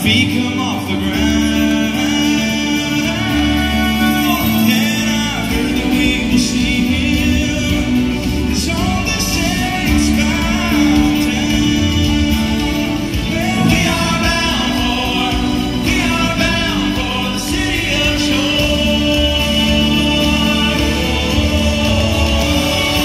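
Live gospel vocal group singing with acoustic guitar accompaniment, amplified through a PA in a hall.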